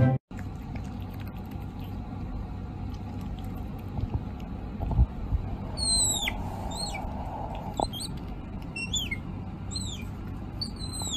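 Baby otter chirping: several short, high-pitched squeaks that each slide quickly downward in pitch, beginning about halfway in and repeating every second or so. Before them are soft handling noise and a few light knocks.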